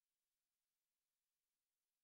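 Silence: the film transfer has no soundtrack, leaving only a very faint, even hiss.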